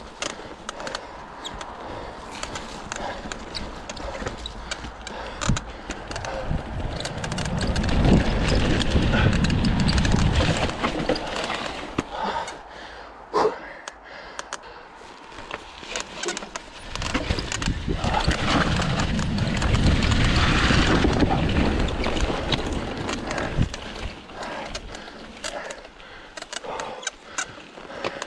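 Cannondale Scalpel mountain bike ridden down a bike park trail: tyres rolling over dirt, with the bike clattering and squeaking over bumps. A louder rushing noise swells twice, about eight seconds in and again around eighteen seconds in.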